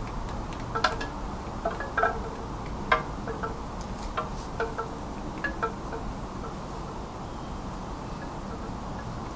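Irregular light tinkling strikes, like wind chimes, over steady background noise. The strikes come thickly for about six seconds, then die away.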